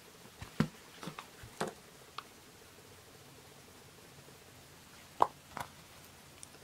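Scattered light clicks and taps of a shell-piece necklace being handled: several in the first two seconds, the sharpest about five seconds in.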